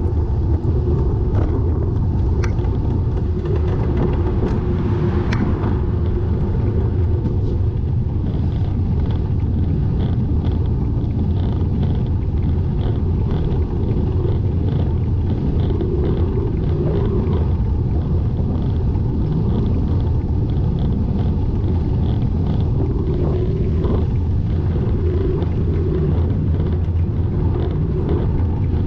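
Steady low rumble of wind and road noise from a moving bike ride, with a few sharp clicks early on and faint, evenly spaced ticking through the middle stretch.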